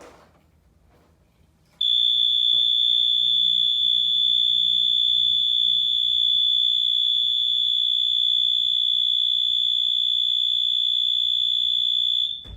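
Fire alarm sounder giving one continuous, steady, high-pitched tone during an alarm test, starting suddenly about two seconds in and cutting off shortly before the end.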